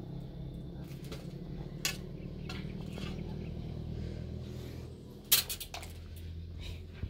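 Sharp knocks and clinks, the loudest about five seconds in, followed by a quick run of smaller clicks, over a steady low hum.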